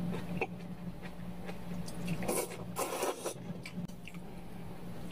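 A person slurping and chewing cold soy-milk noodles (kongguksu), with two short loud slurps about two and a half and three seconds in and a few light clicks between. A steady low hum runs underneath.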